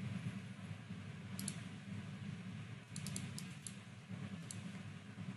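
A few computer keyboard and mouse clicks: a pair about a second and a half in, a quick run of about five a second or so later, and one more near the end, over a steady low hum.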